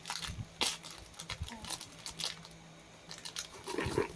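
Scattered crinkles and crackles of a plastic chiki snack packet and the crunchy snacks inside being handled, with a slightly louder rustle near the end.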